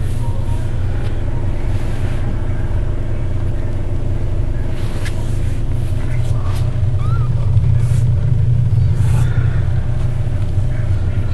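A steady low hum runs throughout and is the loudest sound. About seven seconds in, a two-week-old kitten gives one faint, short mew, with a few light handling clicks around it.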